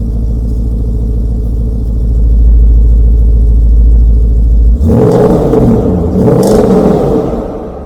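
Porsche Cayenne S engine running through an aftermarket Akrapovic dual sports exhaust: a steady deep idle, then a sharp rev about five seconds in that rises and falls away again near the end.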